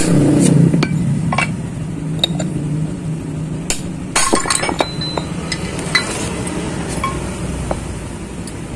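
Irregular metal clinks and taps of tools on a motorcycle crankshaft, with a cluster of strikes about four seconds in and a brief ringing note just after, as the crankshaft is knocked apart by hand to free the connecting rod.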